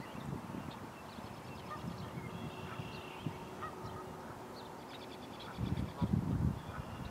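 Canada geese honking. A low, rumbling noise comes in about two-thirds of the way through and is the loudest thing near the end.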